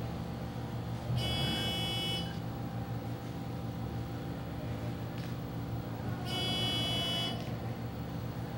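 An electronic buzzer sounds twice, each buzz about a second long and about five seconds apart, over a steady low hum.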